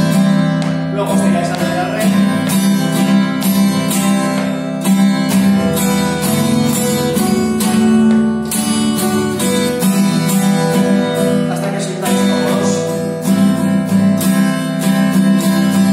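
Steel-string acoustic guitar strummed in a steady down-up rhythm, changing chords, with a stroke left out in each bar as a silent beat.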